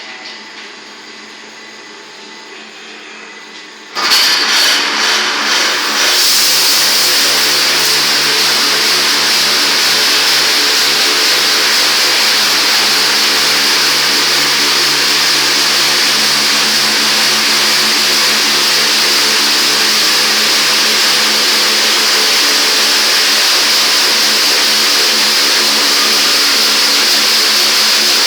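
Touchless car wash machine starting up about four seconds in, then running steadily: a loud hiss of spray or air over a steady motor hum.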